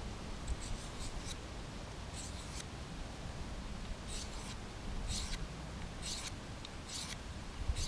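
Mora 746 knife blade scraped across a small hand-held sharpening stone in short strokes: a quick cluster of light strokes near the start, then single strokes about once a second, as the bent edge is reground.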